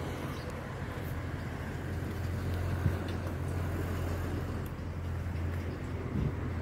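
Outdoor ambience: a steady low rumble, with a single faint tap about three seconds in.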